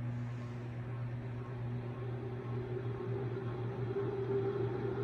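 52-inch Banvil Emperor ceiling fan motor spinning up on high speed. A steady hum runs under a motor whine that grows louder and rises slightly in pitch from about two seconds in. The bearings had seized and were re-oiled.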